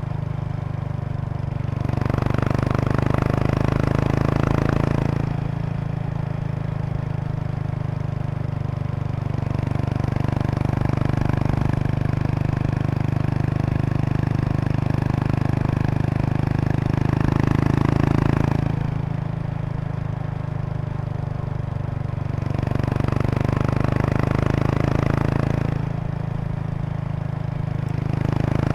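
Exhaust note of a 2003 Kawasaki Estrella RS's single-cylinder four-stroke through a Yamato aftermarket muffler while riding at an easy pace. It swells louder several times and settles back as the throttle is opened and eased off.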